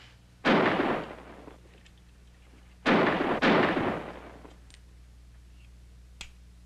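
Three gunshots, each with a short echoing tail: one about half a second in, then two in quick succession about three seconds in. A light click near the end.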